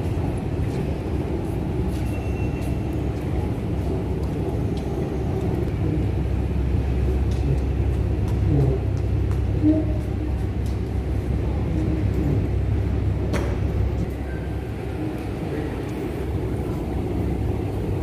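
Steady low rumble of a large station hall, growing heavier for several seconds in the middle, with scattered light clicks.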